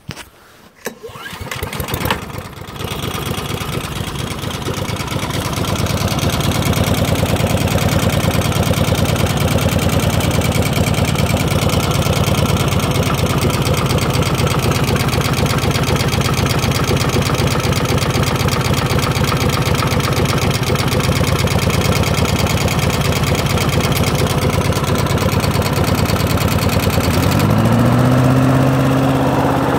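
Honda four-stroke lawnmower engine pull-started, catching within the first couple of seconds and then running steadily. Near the end it speeds up, its note rising and holding higher.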